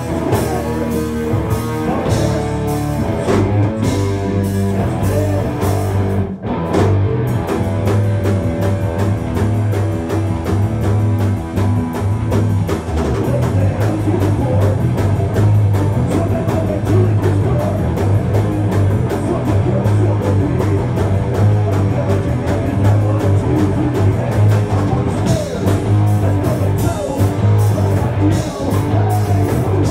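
Rock band playing live in a rehearsal room: electric guitars and a drum kit, with a brief break about six seconds in.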